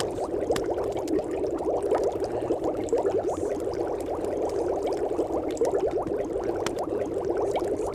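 Steady bubbling, gurgling water, a dense run of quick little rising bubble sounds with faint scattered clicks, continuous and unchanging.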